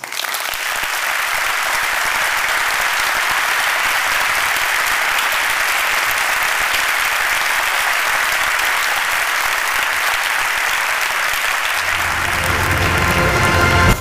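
A large audience applauding steadily. Near the end, music comes in under the clapping.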